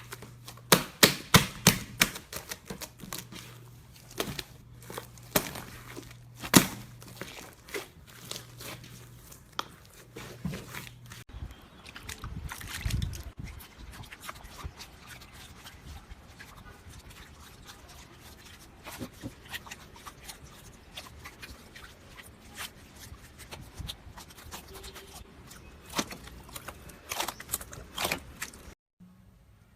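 Slime being squeezed and poked by hand, giving irregular sharp clicks, crackles and pops. The pops come thickest in the first few seconds and again near the end.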